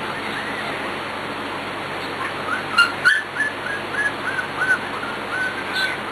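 Three-week-old Pembroke Welsh corgi puppy whining: a run of short, high, squeaky cries, about three a second, starting about two seconds in. Two sharp clicks come about three seconds in, over a steady hiss.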